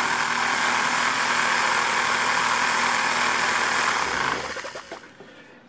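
A small electric power tool, used to clean the outside of a ratchet wrench, runs steadily. About four seconds in it is switched off and winds down over about a second.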